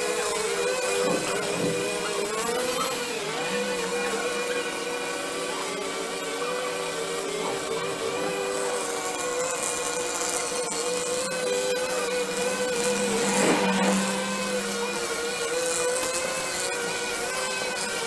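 Several engine-driven brush cutters running steadily at high speed while cutting dense weeds, their whines overlapping with slightly wavering pitch. A brief louder surge comes about two-thirds of the way in.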